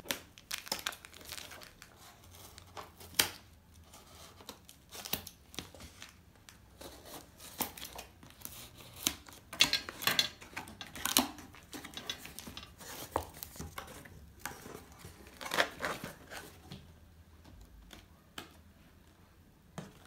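Scissors cutting and tearing packing tape on a cardboard shipping box, then cardboard flaps and packaging rustling and knocking as the box is opened. The sound is a scatter of sharp rustles and taps that die down near the end.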